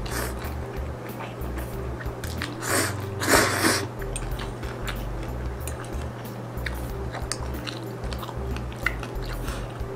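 Mie goreng noodles being slurped and chewed close to the microphone, with many small wet clicks and a louder, longer slurp about three seconds in.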